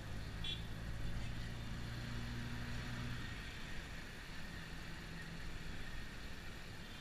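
Traffic and taxi engine noise heard from inside the cabin: a steady low engine hum over road noise, with the hum dropping away about three seconds in.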